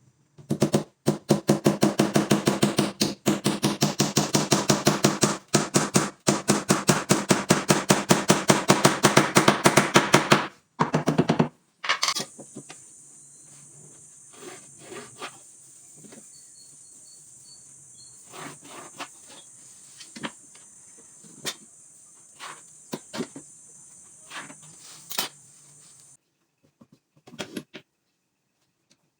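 A rapid, even run of mechanical strikes, about eight a second, for roughly ten seconds. Then a steady high hiss with scattered clicks and knocks, which stops suddenly near the end.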